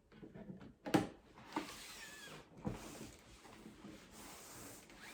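Packaging being handled as a boxed set is slid open: a few sharp knocks, the loudest about a second in, then a steady scraping rustle of the box sliding.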